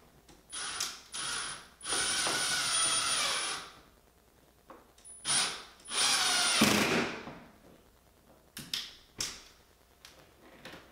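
Cordless drill run against a wall in bursts with a high motor whine: two short bursts, a run of nearly two seconds, two more bursts with the motor spinning down at the end of the second, then a few quick taps of the trigger near the end.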